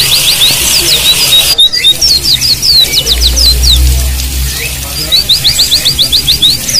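White-eyes (pleci) singing: quick runs of sharp, downward-slurred high whistled notes, about eight a second, mixed with looser chirps. The sound is broken by a sudden cut about a second and a half in, and a steady hiss under the first run stops at the cut. A new rapid run starts about five seconds in.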